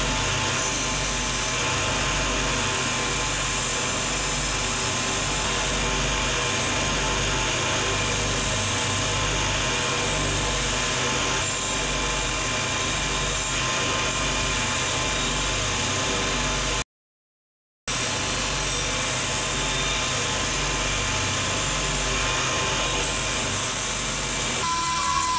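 A motor-driven wire brush wheel spinning on a threaded spindle and brushing the metal housing of an old electric drill, a steady machine noise. The sound cuts out completely for about a second past the middle, then carries on the same.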